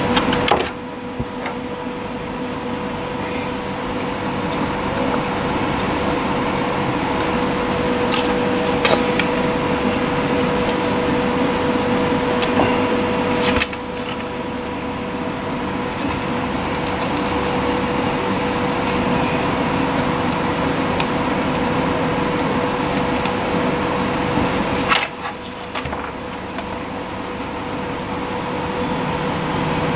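A steady machine hum with a constant tone, with scattered small clicks and taps from 3D-printed plastic parts and a small screwdriver being worked together by hand.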